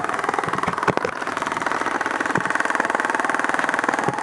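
Airsoft electric gun firing a long full-auto burst: a fast, steady mechanical rattle of rapid shots, with a few sharper cracks about a second in.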